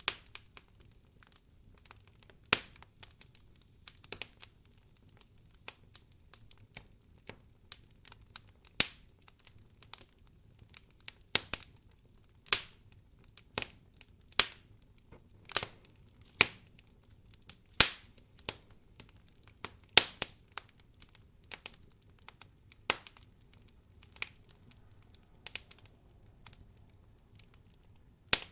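Campfire of burning firewood crackling, with irregular sharp pops and snaps, about one or two a second.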